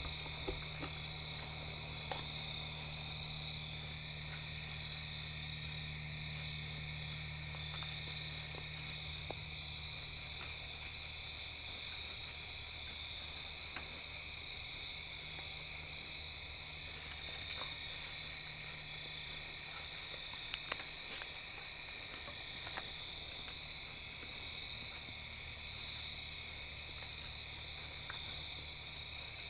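Steady chorus of crickets and other night insects, a continuous high trill, with a low hum underneath and a few faint ticks.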